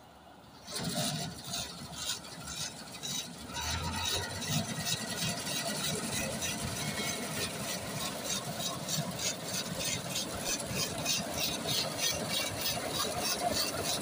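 New Holland 8070 combine harvester running, its engine going steadily under a fast, even clatter from the header and belt drives. It starts up loud about a second in.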